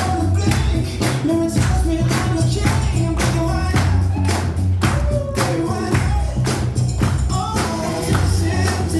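Upbeat music with a steady beat, bass and a tambourine-like shake, with a sung or melodic line over it.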